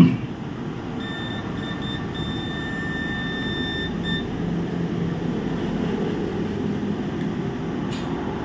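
Multimeter continuity buzzer giving a steady high beep for about three seconds, starting about a second in and broken twice briefly, as the probes touch a point on a laptop motherboard's power section; the beep means the point has continuity to ground, a sign of the short being traced. A steady low rushing noise runs underneath.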